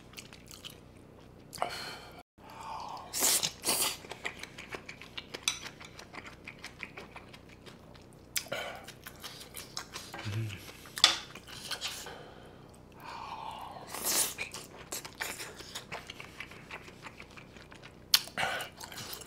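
Close-miked chewing of kimchi fried rice with bulgogi, in irregular bursts, mixed with a spoon scraping and clicking against a coated grill pan.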